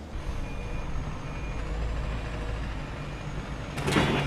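Refuse collection truck's engine running with a steady low rumble, two short faint beeps, and a loud clatter near the end.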